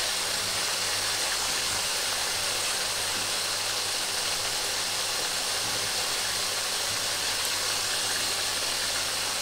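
Beef seekh kebabs shallow-frying in a karahi of oil: a steady sizzle of bubbling oil, with a faint low hum beneath it.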